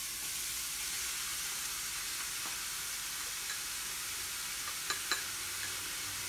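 Chopped onion, garlic and grated carrot sizzling in hot oil in a pot, a steady frying hiss as grated potato is added. Two light taps of a spoon on the bowl about five seconds in.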